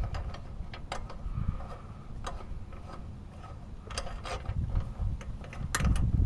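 Irregular metallic clicks and clinks of hand tools and loose engine parts being handled while a lawn mower engine's cylinder head is unbolted, over a low background rumble. The clicks come closer together near the end.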